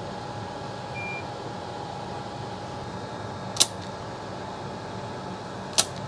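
Steady workbench hum, like a fan running, with a faint steady tone in it; a short high beep about a second in and two sharp clicks, one past the middle and one near the end.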